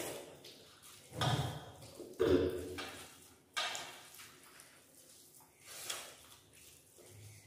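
Eating sounds of rice and vegetables being eaten by hand from steel plates: about four short bursts of hand-mixing, chewing and steel dishes knocking, with quiet between.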